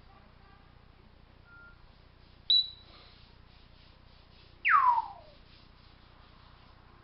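African grey parrot whistling: a short high whistle about two and a half seconds in, then a longer whistle sliding down from high to low just before five seconds.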